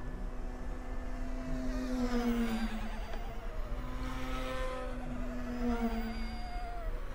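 Small electric RC helicopter (the M1) flying loops overhead: a steady whine from its motor and rotors, whose pitch dips twice and recovers as it goes around.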